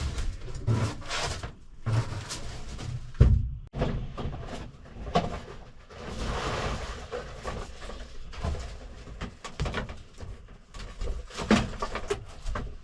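Irregular knocks, clunks and rattles of parts and panels being handled and pulled out of a truck cab interior, with a second or so of scraping near the middle.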